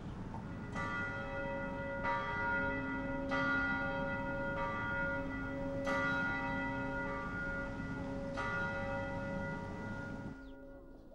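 A church bell tolling: seven strokes about a second and a quarter apart, each ringing on into the next, with the ringing dying away about ten seconds in.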